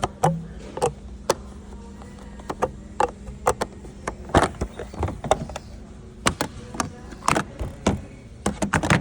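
Display washing machines being handled: a string of irregular sharp clicks and knocks from their doors, lids and controls, over a steady low hum.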